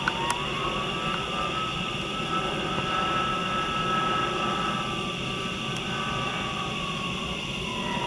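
Low-flying aircraft passing overhead: a steady engine rumble with a whine that rises in pitch over the first second or so, holds, and falls away near the end.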